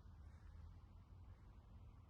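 Near silence with a faint, steady low rumble.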